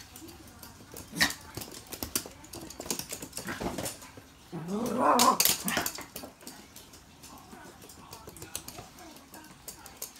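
Toy poodle growling in play as it tugs and shakes a stuffed toy, loudest in one rising-and-falling growl of about a second midway, among scattered sharp clicks and knocks.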